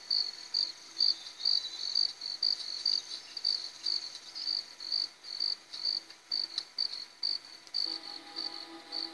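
Crickets chirping in an even rhythm, about two chirps a second, from a film soundtrack heard through a television speaker. Soft music comes in near the end.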